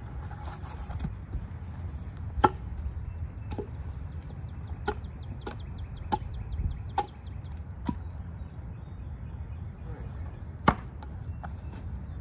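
Hatchet chopping small branches off cherry logs: about seven sharp strikes a second or so apart, the loudest about two and a half seconds in and near the end, over a steady low wind rumble.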